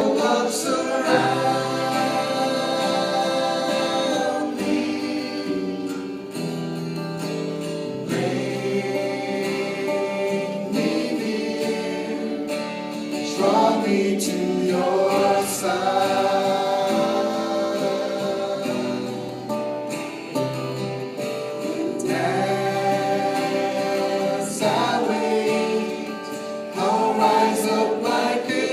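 A choir singing a gospel worship song in harmony, in long held phrases.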